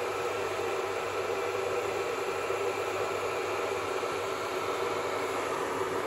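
Russell Hobbs electric kettle heating water with its switch on, a steady rushing noise.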